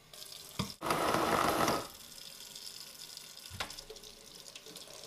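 Kitchen faucet running water into a plastic shaker cup: a loud rush for about a second, then a softer steady flow, with a couple of light knocks.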